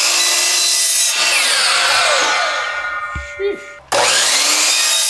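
DeWalt sliding miter saw cutting white PVC pipe. The motor spins down with a falling whine after about a second. Then a knock, and about four seconds in the saw starts up again suddenly for another cut.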